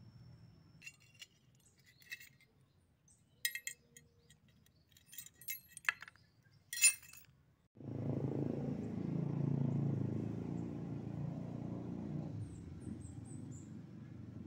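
Small sharp metal clicks and clinks from a homemade crossbow's sheet-steel trigger mechanism being handled, a scattered string of them with the loudest near the middle. About eight seconds in, a steady low noise starts suddenly and carries on, fading slightly.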